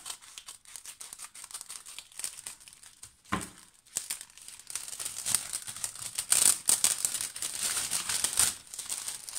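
Small scissors snipping a clear plastic packaging sleeve, then the plastic crinkling as it is pulled open around a stack of scrapbook papers, growing louder in the second half. A short knock about three seconds in as the scissors are put down.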